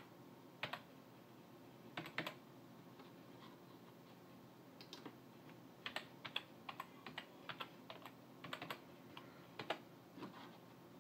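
Faint computer keyboard keystrokes as a password is typed in: a few keys early, a sparse patch of a few seconds, then a denser run of clicks.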